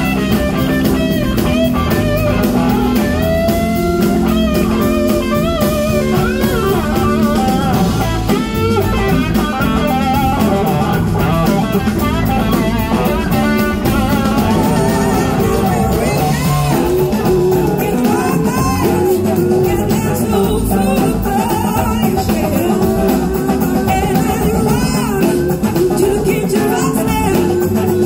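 Live blues-rock band playing: electric guitar with gliding slide lines over drums and bass. A woman's singing comes in about halfway.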